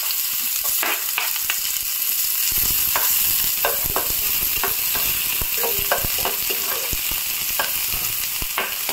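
Chopped onions sizzling in hot ghee in a non-stick pan, with a spatula scraping and stirring them in many short strokes over a steady hiss.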